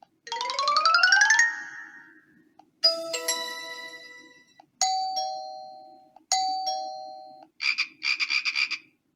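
Preset phone ringtones and alert sounds of a ZTE Blade A3 2019 played one after another through the phone's speaker: a quick rising run of notes, a bright chord that rings and fades, a two-note ding-dong chime played twice, and a short rapid electronic trill near the end.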